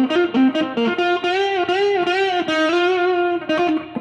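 Electric guitar played through a Marshall Valvestate VS30R amplifier: a single-note lead line with notes bent up and back down.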